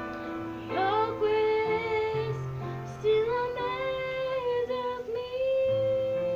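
A woman singing a slow worship song over a sustained instrumental backing. Her voice comes in about a second in, sliding up into long held notes.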